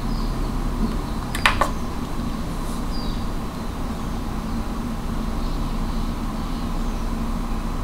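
Steady low hum and hiss of room background noise, with two quick sharp clicks about a second and a half in as the test clips and milliohm meter are handled.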